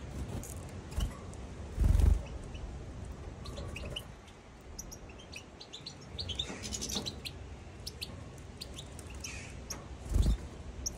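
European goldfinches chirping: scattered short, high calls, some in quick little runs. Two dull low thumps stand out, one about two seconds in and one near the end.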